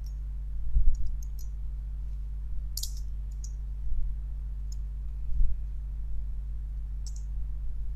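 Computer keyboard keystrokes: a handful of separate clicks spread a second or more apart, over a steady low hum.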